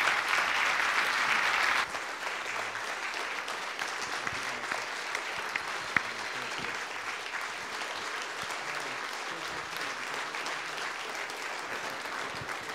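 A church congregation applauding, loud at first and then abruptly quieter about two seconds in, before carrying on steadily. There is a single sharp click about six seconds in.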